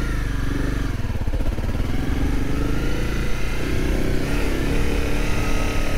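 Motorcycle engine running as the bike rides along, its pitch shifting a little with the throttle.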